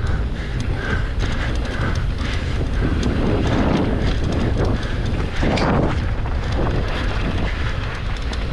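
Mountain bike riding downhill over rough ground: wind buffeting the microphone over steady tyre rolling noise, with frequent quick clicks and rattles from the bike.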